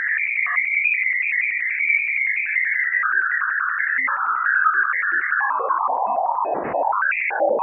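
Plasma radio-wave emission recorded by the Juno spacecraft's Waves instrument as it passed Jupiter's moon Ganymede, shifted down into hearing range. It sounds like an electronic, warbling whistle with a fast even flutter. It holds high for the first couple of seconds, then falls steadily in pitch, with a brief upward chirp near the end.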